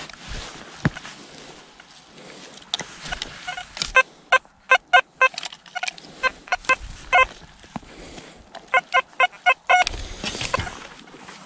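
Metal detector sounding a target with quick runs of short electronic beeps, about five or six a second, as its search coil is swept back and forth over a freshly dug hole. It is signalling metal still in the ground. Faint rustling of the grass and handling comes between the runs.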